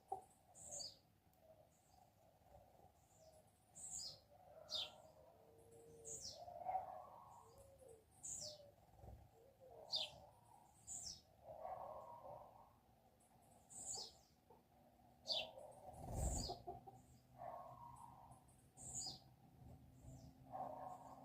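Small songbirds chirping faintly: short, sharp, high notes that drop in pitch, repeated every second or so.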